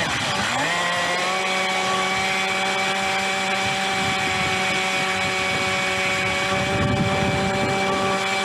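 RC jet boat's motor driving its M-Jet 30 jet pump at speed: a steady, high whine over rushing, spraying water. The whine dips and climbs back within the first second, then holds a constant pitch.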